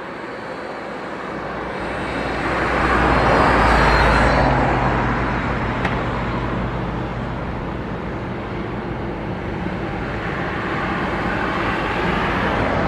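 Jet airliner engines on final approach: a broad, rushing engine noise that swells to its loudest about four seconds in, eases off, then builds again near the end as the next jet comes in over the runway threshold.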